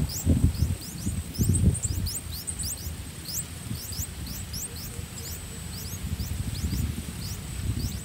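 Streak-eared bulbul nestlings begging: a steady run of thin, high chirps, each falling in pitch, several a second, as the gaping chicks wait for food. A low rumbling noise sits underneath, strongest in the first two seconds.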